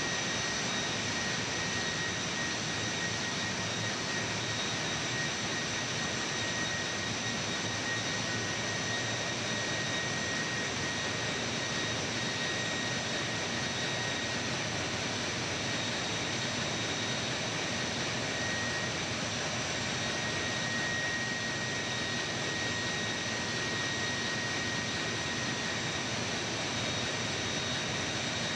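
Ship's engine room machinery running: a steady, unbroken roar with a constant high-pitched whine above it.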